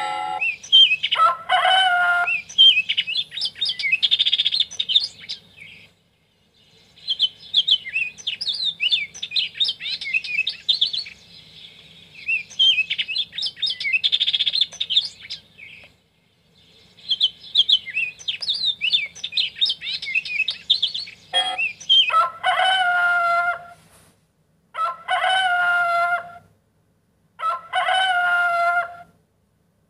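Songbirds chirping and twittering in several stretches broken by short gaps, then a rooster crowing three times, each crow about a second and a half long.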